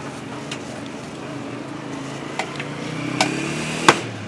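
A motor vehicle running past in the street, its engine rising in pitch and growing louder in the second half. Over it come a few sharp metallic clinks of a serving ladle on steel pots, the loudest near the end.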